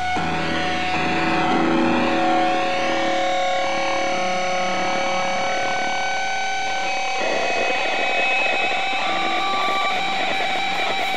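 Instrumental prog rock music: held notes played through effects, with a wavering high sweep over the first few seconds. About seven seconds in, a dense strummed guitar comes in.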